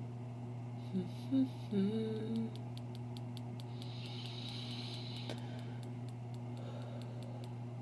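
A woman hums a few short, wavering notes, over a steady low hum. Then comes a run of faint light clicks with a soft rustle.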